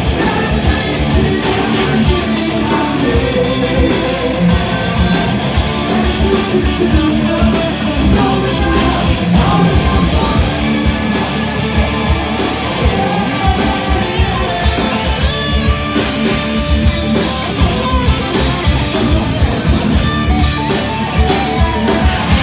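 A hard rock band playing live at full volume: electric guitar, electric bass and drum kit together.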